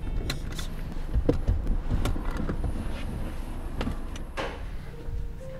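Low rumble inside a car's cabin with a series of sharp clicks and rustles as the passengers unbuckle and reach for the door, and a short louder rush about four and a half seconds in, typical of a car door being opened.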